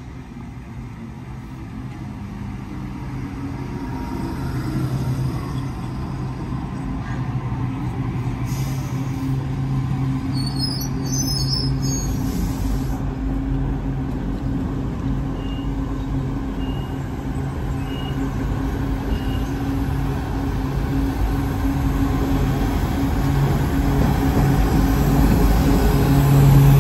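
Diesel locomotives of a container freight train approaching and passing, their engines running with a steady low hum that builds gradually and is loudest at the end as the locomotives draw level.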